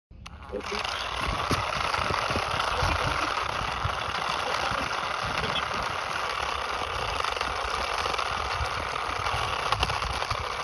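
Steady engine-like running noise with a low rumble, starting abruptly at the very beginning.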